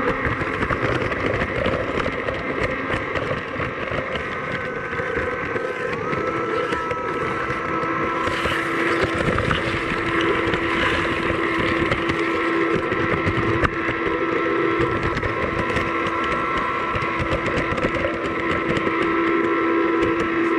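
Onboard sound of a G scale model tram running along garden railway track: the small electric motor and gears whine steadily over the rumble and clatter of the wheels on the rails. About six seconds in the whine steps up in pitch and a second, lower hum joins it.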